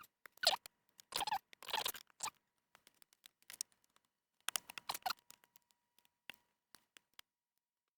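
Small handling noises of flat flex cables and their pressure connectors being pulled around the edge of a laptop logic board: short scrapes, rustles and light clicks. They come in brief bunches in the first couple of seconds and again about five seconds in, and stop after about seven seconds.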